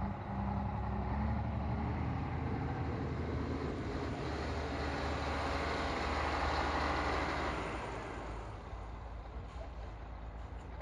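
Scania R420 tractor unit's 12-litre straight-six diesel running as the truck drives up and turns in front of the listener. The engine hum and rushing noise swell to a peak about six to seven seconds in, then ease off.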